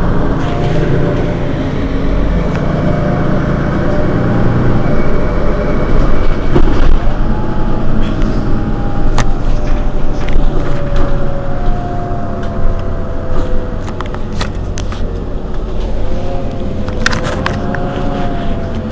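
Mercedes-Benz Citaro Facelift city bus's diesel engine idling while the bus stands still, a steady low rumble with a faint whine that drifts slowly in pitch. A few sharp clicks come near the end.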